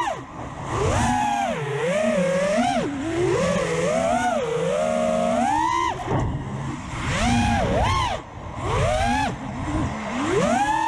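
FPV quadcopter's brushless motors whining, the pitch rising and falling quickly and constantly as the throttle is worked in flight.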